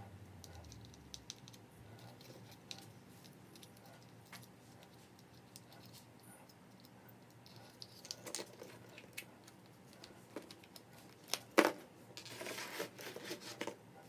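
Hollow plastic Easter eggs being handled: light clicks and taps as the halves are snapped shut and the eggs slid along a string. A little before the end comes one sharp knock, then a couple of seconds of plastic eggs clattering together.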